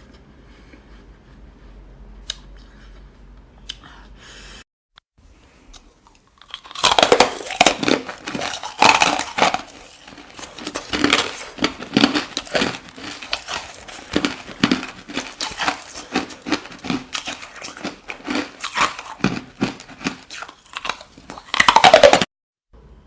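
Ice being bitten and chewed with loud, irregular crunching. It starts after a few quiet seconds and ends in a last loud crunch near the end.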